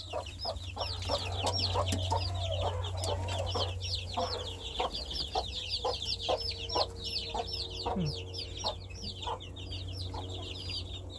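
A brood of chicks peeping without pause, many short falling chirps a second, with a broody hen clucking low among them. A steady low hum runs underneath.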